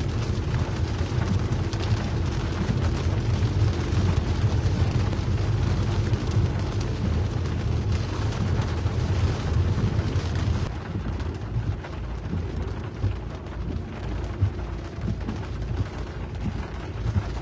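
Car cabin noise while driving in heavy rain: a steady low rumble from the car with the hiss of rain and spray on the windscreen and wet road. The hiss thins a little after about ten seconds.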